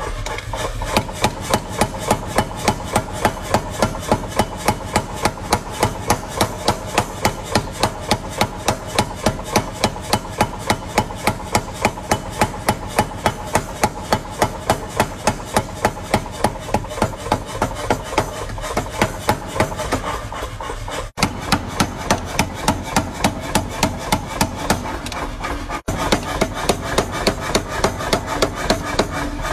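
Mechanical power hammer pounding a red-hot steel blade on its anvil die, a fast regular run of about three to four blows a second over the machine's steady running. The blows start about a second in.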